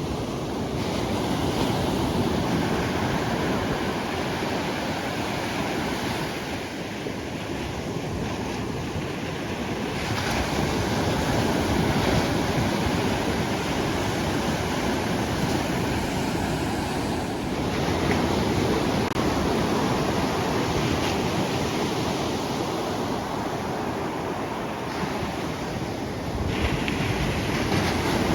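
Ocean surf breaking and washing on a beach, a steady rushing noise with wind buffeting the microphone. The sound shifts abruptly a few times, about ten seconds in, about seventeen seconds in and near the end.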